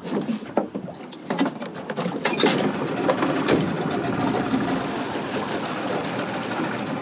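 A few clicks and knocks, then, from a couple of seconds in, a boat's outboard motor running steadily at low speed.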